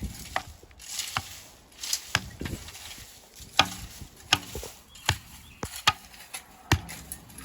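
Hammer blows: about ten sharp strikes at a fairly steady working pace, roughly one every three-quarters of a second.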